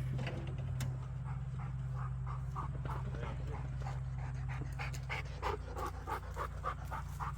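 Rapid rhythmic panting, about three breaths a second, over the steady low hum of an idling engine.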